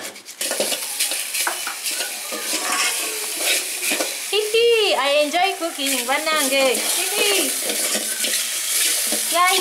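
Chunks of beef sizzling in an aluminium pot as a wooden spoon stirs them, with repeated short squeaks from about halfway in as the spoon scrapes the pot.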